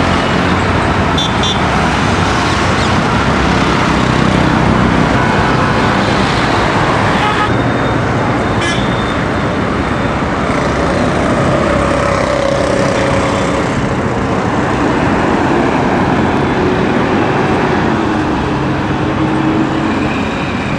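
Busy city street traffic: a steady din of passing cars, motorbikes and auto-rickshaws, with a few short horn toots.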